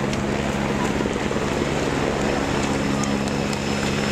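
Steady engine drone, an unchanging hum with wind noise on the microphone.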